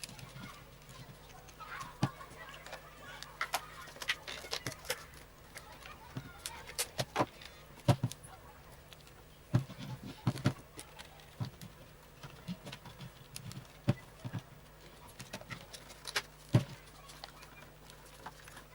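Irregular clicks and knocks of small hard hair-dryer parts being handled during repair, over a faint steady low hum.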